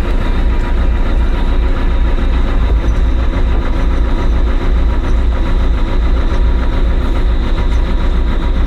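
Engine of a construction machine running steadily under way, a constant low rumble with no change in pitch.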